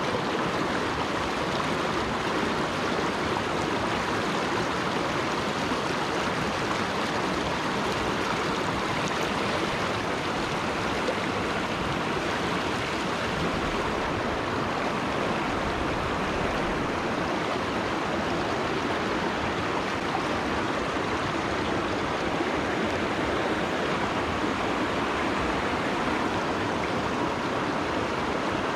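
Stream water rushing, a steady unbroken rush.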